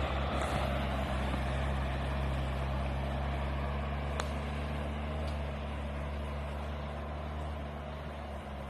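A 4x4 off-roader's engine running steadily as it drives through mud and water, the wheels churning and sloshing; the sound slowly fades as the vehicle pulls away. A single sharp click about four seconds in.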